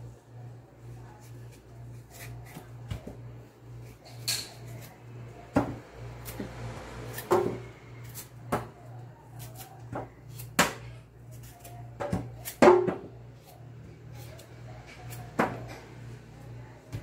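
Kitchen knife peeling a taro corm by hand over a stainless steel sink: short scrapes and several sharp, irregular clicks and knocks, over a steady low hum.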